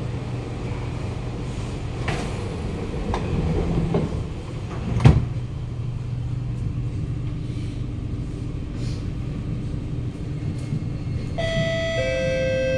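Kawasaki Nippon Sharyo C751B metro train heard from inside the car, a steady low hum as it pulls away from the platform, with one sharp thud about five seconds in. Near the end an electronic chime of held tones starts, the lower note stepping down.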